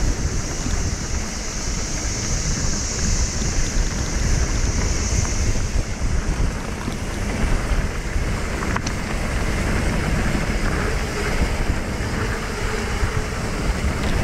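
Wind buffeting the microphone and mountain-bike tyres rolling over a dirt trail as the bike descends at speed, a steady rumbling rush.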